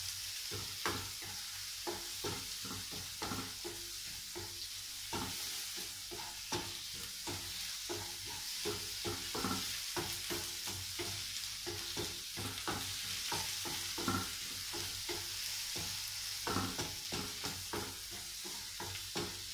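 Mushrooms and onion sizzling as they are sautéed in a frying pan, with a wooden spatula stirring them and scraping and tapping against the pan several times a second.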